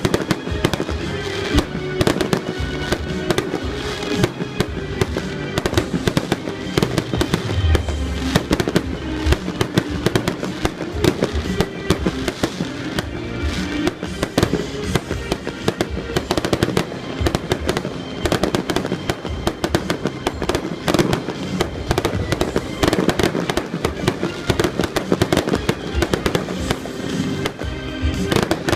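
Fireworks display: a dense, continuous barrage of bangs and crackles from aerial shells, with music playing alongside.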